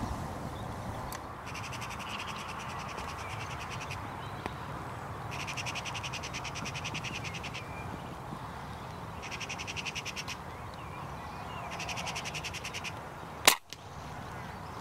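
Magpie chattering: four bursts of a fast, dry rattling call. Near the end comes a single sharp crack from a Theoben MFR .22 air rifle firing.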